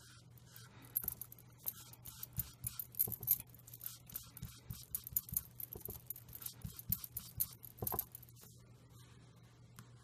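Light, irregular tapping and dabbing of a foam sponge dauber on card stock and a paper mask, with small paper rustles; the dabbing stops about eight seconds in. A faint steady low hum runs underneath.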